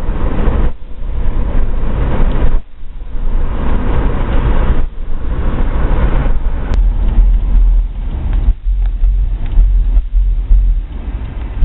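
Loud, bass-heavy music played through a car audio system of six JL Audio 13W7 subwoofers, overloading the microphone. The deep bass grows much heavier about seven seconds in, with a few brief drops in between.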